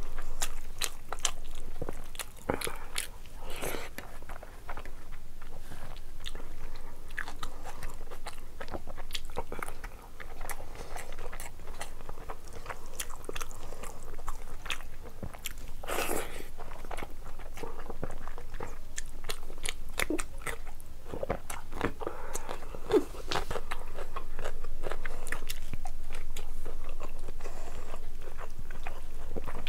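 Close-miked chewing of rice and curry eaten by hand, with frequent short wet mouth clicks and occasional crunches.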